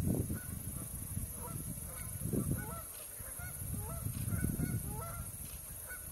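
Canada geese giving many short, soft honking calls that overlap and repeat, with low rumbling noise swelling at the start and again about two and a half and four and a half seconds in.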